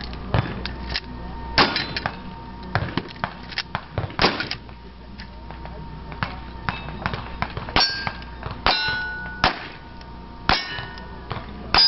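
Gunfire at steel targets: two shotgun shots in the first few seconds, then revolver shots about a second apart in the second half, each followed by the ringing clang of the hit steel plate. Small clicks and clatter of gun handling between the shots.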